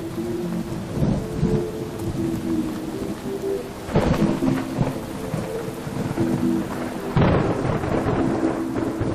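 Steady rain with three thunder crashes, about a second in, midway and near the end, over background music of long held notes.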